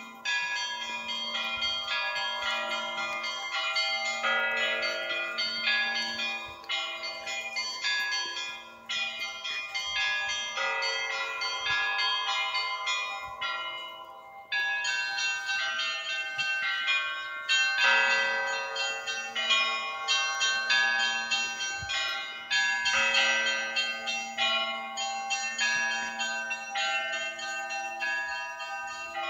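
Russian Orthodox church bells rung together in a rapid peal: small bells struck in quick rhythmic patterns over a lower bell that sounds about once a second. The peal drops briefly about halfway through, then comes back louder.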